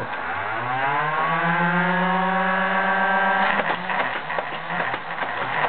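Nerf Rapidstrike blaster's flywheel motors spinning up with a rising whine on weak dollar-store batteries, then, about three and a half seconds in, a rapid full-auto clatter as darts are pushed through and the motors bog down.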